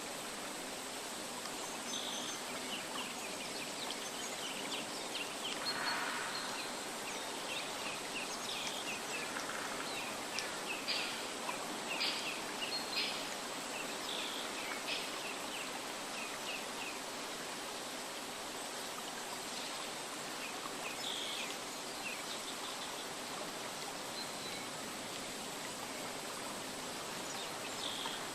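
Nature soundscape: a steady rushing noise like a flowing stream, with small birds chirping in short calls, busiest in the first half.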